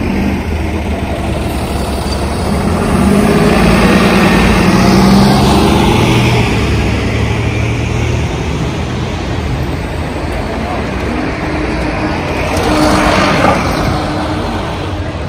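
City street traffic: a motor vehicle's engine passing close by, loudest about five seconds in, and another vehicle going past near the end.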